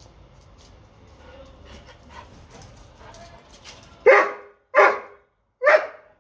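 Doberman barking three short times near the end, out of frustration at a bone stuck under a dog-bed cot that he cannot reach. Before the barks there are faint scattered clicks.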